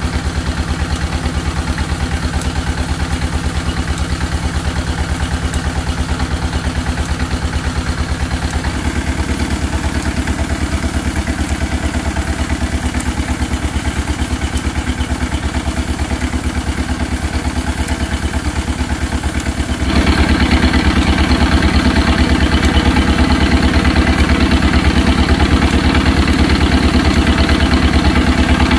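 Small stationary engine running steadily with a rapid even beat, driving a corn puff extruder. The sound shifts suddenly about a third of the way in and gets abruptly louder about two-thirds of the way through.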